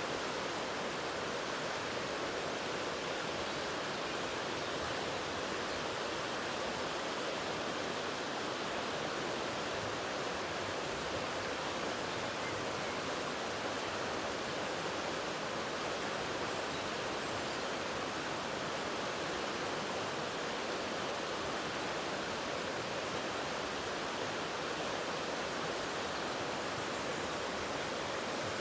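Waterfall: a steady, even rush of falling water with no breaks or changes.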